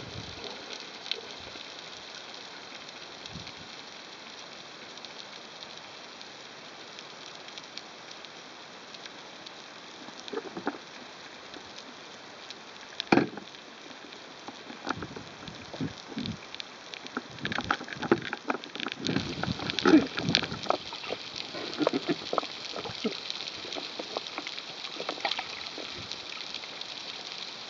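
Underwater ambience heard through a camera housing: a steady hiss with scattered crackling clicks. There is a sharp knock about halfway through, and the clicks and knocks come thicker in the last third.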